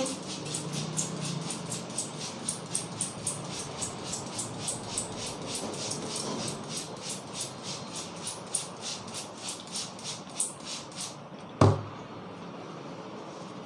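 Hands tapping rhythmically on the head during an Indian head massage (champi), about four quick claps a second, ending in one loud thump near the end.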